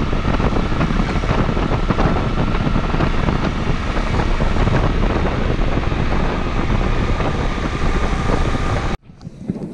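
Wind rushing over the camera microphone while riding a Honda CD125 twin motorcycle, with its engine and road noise underneath as a steady, dense noise. The sound cuts off abruptly near the end.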